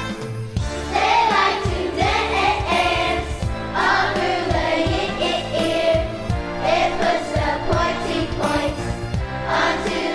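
A choir singing a song over instrumental accompaniment with a steady beat.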